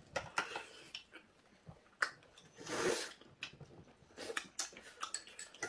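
Eating sounds at the table: chewing and slurping pieces of spicy braised monkfish, with light clicks of chopsticks, metal tongs and scissors against the dishes. One longer, noisier slurp comes about halfway through.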